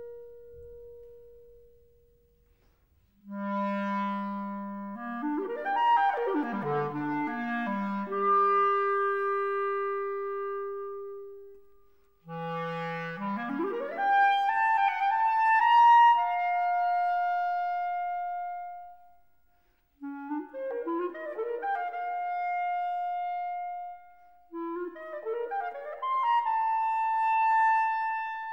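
Clarinet playing a solo passage alone: quick runs sweeping up from its low register into long held notes, in phrases broken by short pauses.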